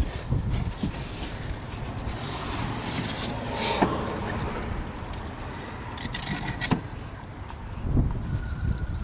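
Leaves and debris being scraped and rustled by hand out of a car's scuttle panel and its water drain, with irregular handling thumps and clicks. Blocked with leaves, this drain can cause a water leak inside the car.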